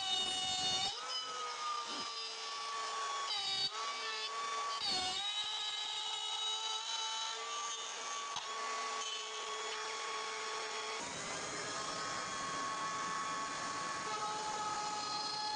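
Electric power tool motor running with a steady whine, its pitch dipping briefly a few times as it is loaded.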